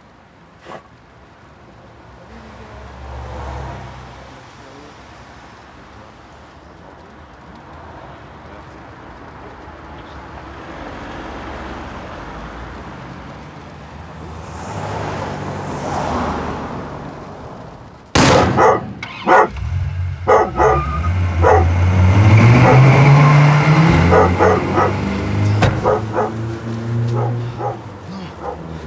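Quiet street background for the first part. About eighteen seconds in, a dog starts barking loudly and repeatedly over a low rising tone, and the barking carries on almost to the end.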